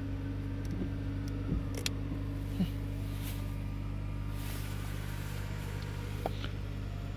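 2013 Dodge Avenger's engine idling steadily, heard from inside the cabin, with a few faint clicks and taps over it.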